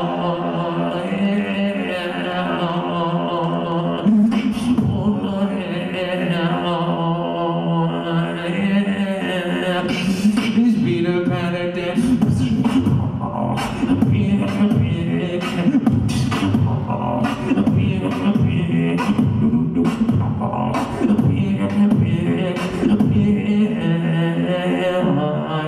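A solo beatboxer performing into a handheld microphone. Held, gliding vocal notes sit over a low bass tone at first. About ten seconds in, sharp snare and kick sounds join and settle into a steady, dense beat under the bass.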